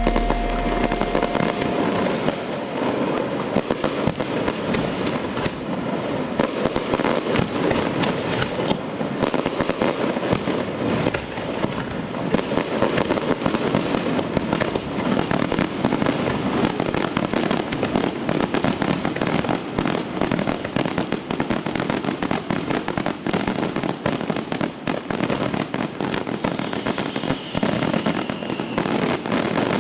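Fireworks display: a dense, continuous barrage of rapid bangs and crackling shells. A music track fades out in the first second or two.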